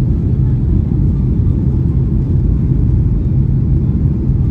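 Steady low rumble of a Boeing 737-800 airliner with rushing air, unchanging throughout.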